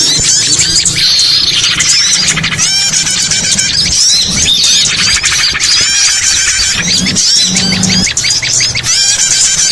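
Bird lure recording for trapping small birds: a loud, dense chorus of many small birds chirping and trilling at once, with calls overlapping all the way through.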